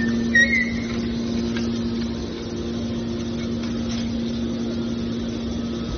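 Hydraulic metal baler running: a steady hum from its motor and pump, with a brief high squeak about half a second in.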